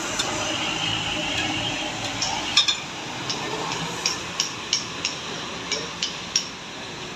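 Hand tools clinking and tapping against the steel parts of a road roller's hand-brake assembly: about a dozen sharp, irregular metallic clicks over the last few seconds, over a steady background of street traffic.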